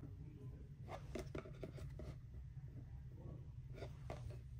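Faint handling sounds: a cluster of light clicks and rubbing about a second in and a shorter one near the end, over a low steady hum.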